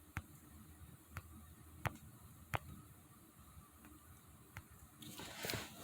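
Scattered sharp clicks and taps of hand work on car parts while the fuel pressure regulator is fitted in place, then a short burst of rustling and scraping near the end.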